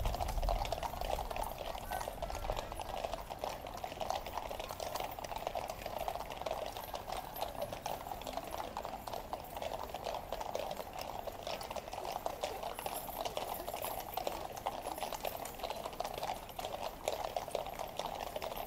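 Hoofbeats of a column of cavalry horses on the road: a dense, continuous clatter of many overlapping clops.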